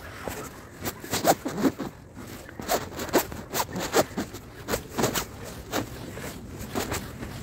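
Footsteps on a hiking trail, each step a short scuff or scrape, at an uneven pace of about two a second.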